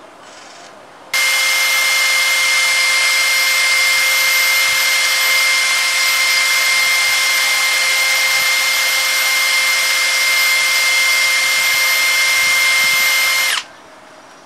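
Cordless drill running flat out, spinning a Yamaha Axis 90 clutch part with a hand file held against the metal: a steady motor whine with the rasp of the file, filing the unevenly worn face level. It starts suddenly about a second in and cuts off suddenly near the end.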